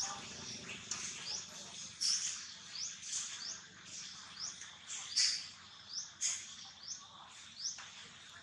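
Birds chirping: a regular run of short, high, rising chirps about two to three a second, with louder, sharper calls breaking in every second or so.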